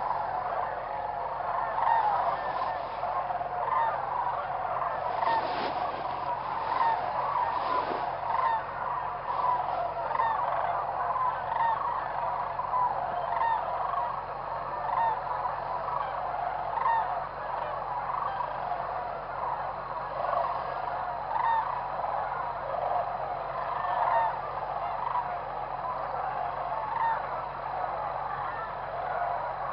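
A large flock of geese honking continuously, many short calls overlapping into a steady chorus.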